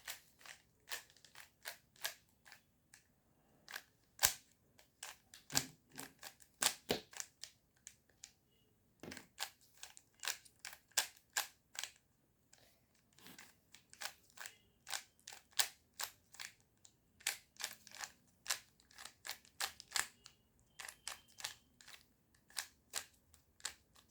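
A 3x3 Rubik's cube being turned by hand: sharp plastic clicks as its layers twist, in quick irregular runs of several turns a second, with two short pauses.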